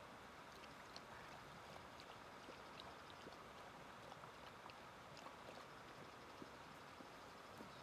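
Dog lapping water from a cup: faint, irregular small lapping ticks over a quiet steady hiss.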